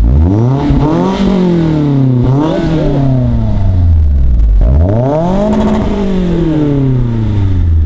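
A 2015 Scion tC's 2.5-litre inline-four is revved twice through a Borla S-Type exhaust, heard at the tailpipe. Each time the engine speed climbs quickly and then falls away slowly, and the first rev gets a short extra blip as it comes down.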